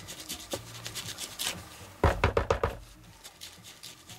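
Foam ink blending tool with a wooden handle rubbed over a paper tag in quick scuffing strokes, the loudest run about two seconds in.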